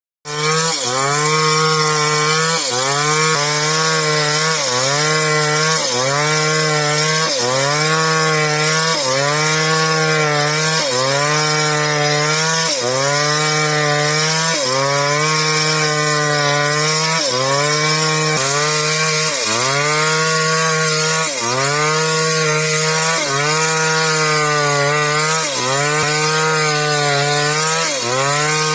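Chainsaw cutting timber for boat frames, running at steady high revs. Its pitch dips and recovers about every second and a half as the bar bites into the wood.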